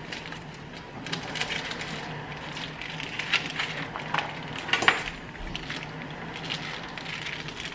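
Plastic meat packaging crinkling and tearing as it is snipped with kitchen scissors and pulled open, with a few sharper crackles between about three and five seconds in. A low steady hum runs underneath.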